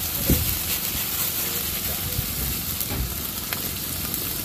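Fern greens sizzling in oil in a wok over a wood fire, a steady frying hiss, with one brief knock near the start.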